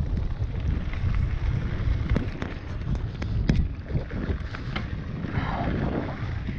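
Wind buffeting the microphone of a camera moving at riding speed, a steady low rumble, with occasional clicks and knocks over the top.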